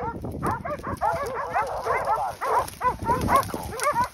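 A pack of hunting hounds baying in a dense chorus of short, overlapping yelps from several dogs at once, the sound of hounds holding a group of wild boar at bay.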